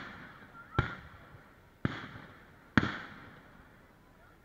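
Fireworks bursting overhead: three sharp bangs about a second apart, each trailing off as it echoes away.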